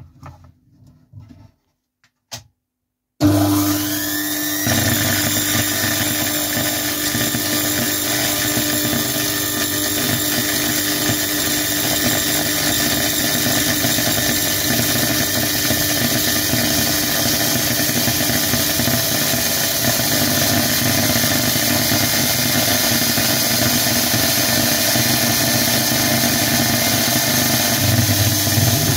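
A 230 V brushed universal motor switches on suddenly about three seconds in, rises in pitch as it spins up over a second or so, then runs steadily at high speed with its brushes arcing brightly at the commutator.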